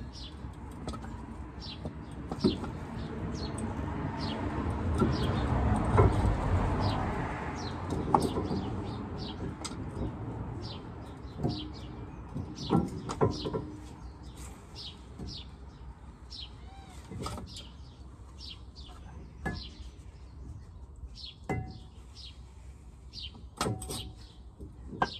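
Scattered sharp knocks and clanks of hand tools working on a Range Rover L322's front brake caliper and disc hub, over small birds chirping throughout. A broad swell of noise rises and fades around six seconds in.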